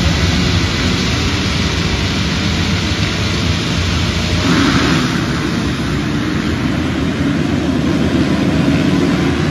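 A full grid of motocross bikes held at high revs behind the start gate, massed into one dense engine racket. About four and a half seconds in, the sound grows fuller as the pack launches off the gate and accelerates away.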